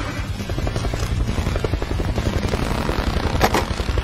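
Helicopter rotor sound, a fast, even chop that carries on throughout, with a single sharp click about three and a half seconds in.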